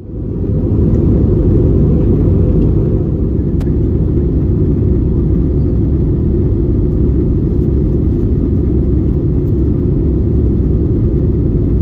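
Steady low roar of cabin noise inside an Airbus A320-214 in flight: CFM56 engine and airflow noise heard from a window seat while descending. It fades in over the first second, then holds even.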